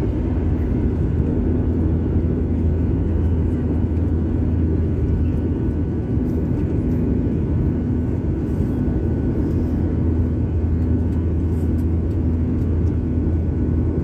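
Airliner engines heard from inside the cabin during takeoff: a loud, steady low rumble with a droning hum that swells and fades at regular short intervals.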